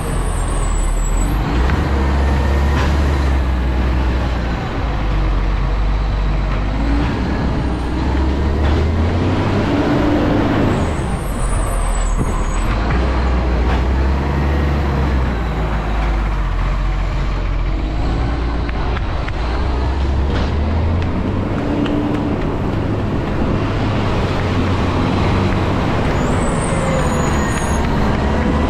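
Garbage truck's diesel engine running loud, its pitch rising and falling several times, with a few brief high squeaks.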